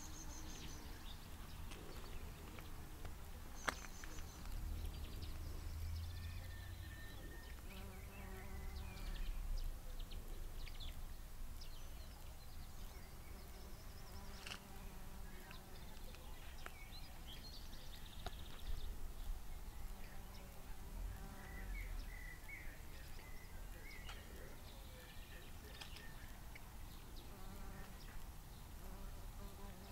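Faint insect-like buzzing over low wind rumble on the microphone, with a couple of small clicks.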